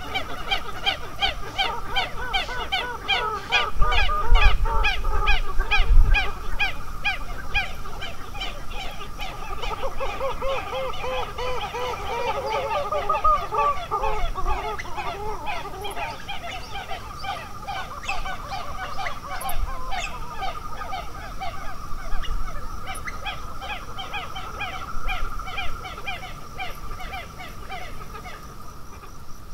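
A dense chorus of many birds calling at once, short calls repeated several times a second and overlapping. A steady high trill runs underneath, and a low wind rumble comes through briefly about four to six seconds in.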